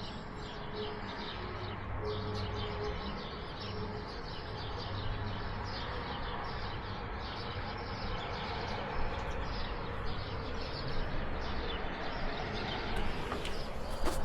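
Many small birds chirping and twittering in a steady morning chorus, dense and continuous. A faint steady hum fades out within the first few seconds.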